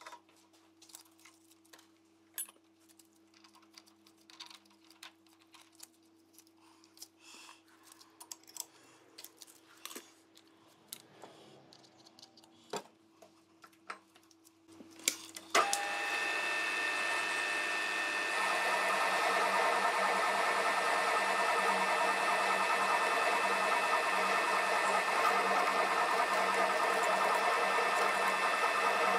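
Light clicks and taps of tooling being changed in a mill-drill spindle, then about halfway through the machine's spindle motor starts suddenly and runs steadily with a high whine as a drill cuts into a metal block.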